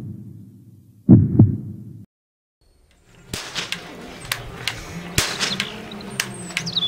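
A deep double thump like a heartbeat about a second in, then a moment of silence. From about three seconds in, a plastic toy cap gun fires its strip of paper caps in sharp cracks, about two or three a second, over a low steady hum.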